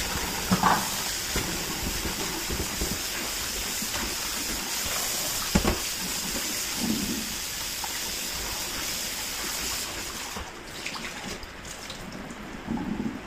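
Kitchen tap running into a stainless-steel sink, the water splashing over a ceramic bowl as it is rinsed by hand. There are a couple of knocks, and the rush of water fades about ten seconds in.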